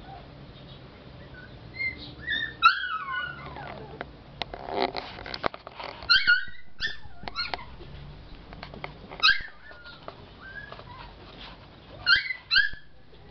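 Lhasa Apso puppy giving short, high-pitched whimpers and yips, half a dozen separate calls, some in quick pairs.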